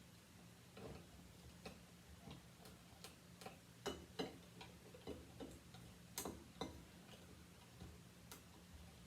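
Faint, irregular small clicks and ticks of thin craft wire being handled and coiled into a spiral by hand, a few slightly louder clicks about four and six seconds in.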